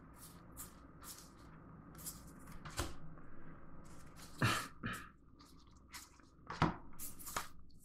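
Game cards being handled and set down on a cutting mat: soft slides and rustles with a few short clacks, the loudest about three, four and a half and six and a half seconds in.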